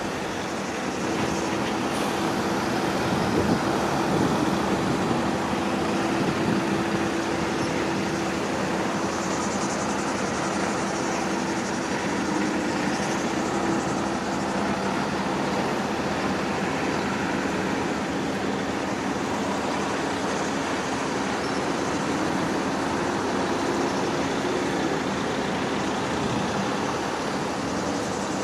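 A line of motorhomes driving past one after another, a steady mix of engine hum and road noise.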